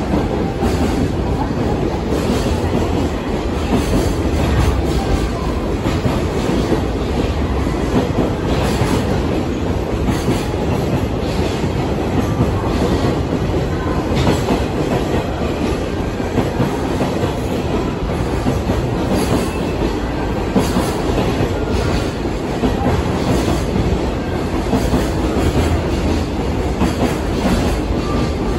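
Freight train's container flatcars rolling past at speed: a loud, steady rumble of wheels on rail with repeated clickety-clack over the rail joints.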